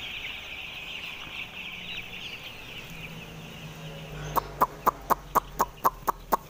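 A shed full of five-day-old broiler chicks peeping in a dense high chorus. After about three seconds the chorus fades, and just past four seconds a loud, regular clicking starts, about four clicks a second, over a low hum.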